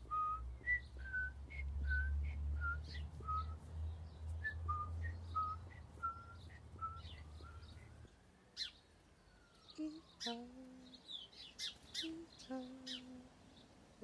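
Whistling: short, high beep-like notes about two a second, each at a slightly different pitch, with birds chirping behind. After about eight seconds one slow whistle rises and falls, followed by a few low held notes.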